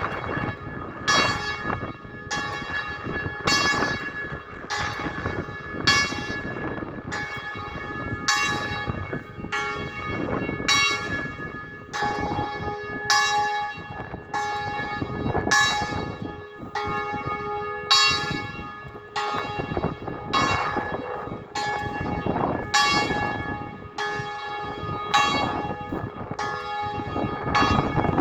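Church bells ringing in a steady sequence, about one stroke a little under every second, with different bells sounding in turn. Wind rumbles on the microphone underneath.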